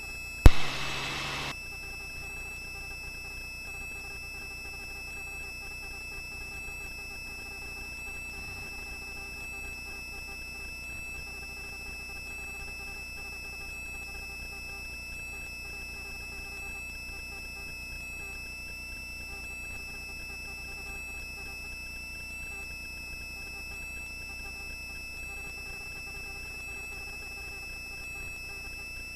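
Helicopter in flight, a steady hum carrying several steady tones. A loud click and about a second of hiss come half a second in.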